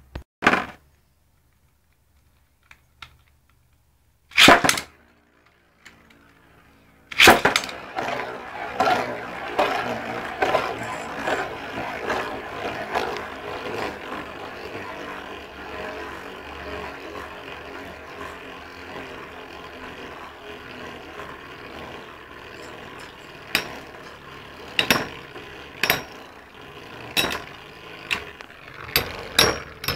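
Beyblade spinning tops launched into a stadium about seven seconds in, then a continuous whirring, scraping rattle as they spin against the bowl, slowly fading. Sharp clacks of the tops colliding come again and again near the end.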